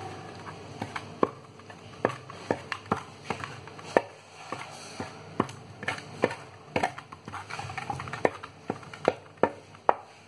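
A hand tool knocking and scraping against a metal pan while stirring marble powder and grit, in sharp irregular strikes about twice a second.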